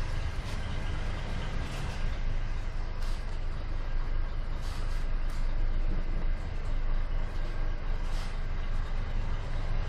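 Scania R420 truck's diesel engine running at low speed, a steady low drone heard inside the cab, with a few brief hissy noises on top.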